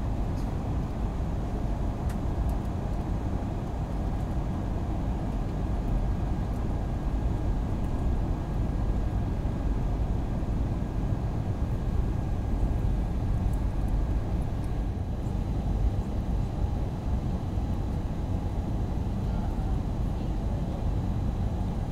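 Steady jet engine and airflow noise inside the cabin of an Airbus A320 in flight, heard from a window seat beside the wing-mounted engine, with a faint steady hum under it.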